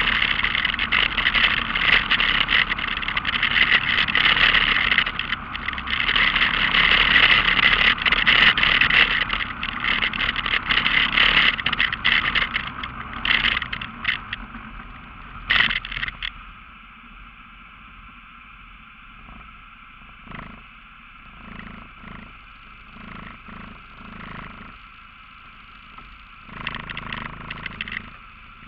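Off-road vehicle's engine driving along a rough forest trail, loud for about the first sixteen seconds, then dropping to a quiet steady idle as the vehicle slows and stops, with scattered knocks and a brief rise in engine sound near the end.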